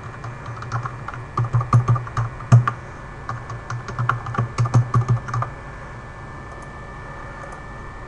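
Typing on a computer keyboard: an irregular run of keystrokes that lasts about five seconds and then stops.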